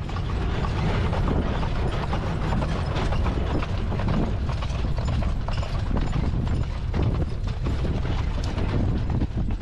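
Mule-drawn wagon rolling along a dirt road: steady clattering and rattling of the wagon's wheels, running gear and harness, with the mules' hooves clip-clopping.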